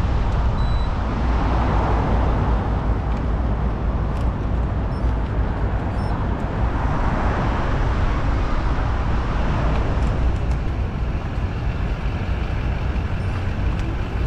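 City street traffic heard from a moving bicycle: a steady low rumble and noise of passing motor vehicles, swelling twice as vehicles go by, about two seconds and about seven seconds in.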